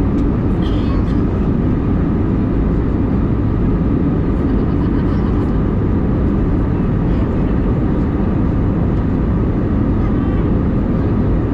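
Steady in-cabin noise of an Airbus A320 in flight: an even rush of engine and airflow noise heard from a passenger window seat, with no change in level.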